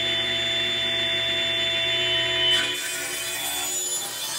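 Table saw blade cutting into a hardwood block fed on a sled, a steady motor hum under the noisy rasp of the cut. The cut grows louder about two and a half seconds in, then eases off.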